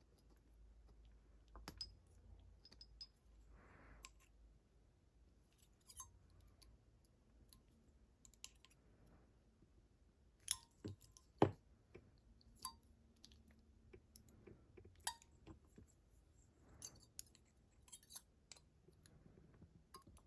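Sparse small metallic clicks and taps of a padlock's parts and picking tools being handled during disassembly, with a few sharper clicks about ten to eleven seconds in.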